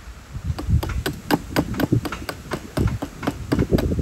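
Repeated knocks, about three to four a second, starting about half a second in: a steel axe head being driven down onto its wooden handle, each blow a sharp knock with a dull thud of wood under it.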